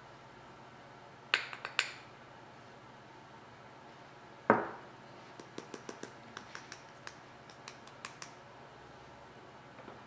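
A metal measuring teaspoon and a small jar clinking while a teaspoon of baking powder is scooped and tipped over a glass mixing bowl. A few sharp clinks come near the start, one louder knock about four and a half seconds in, then a run of light ticks and taps.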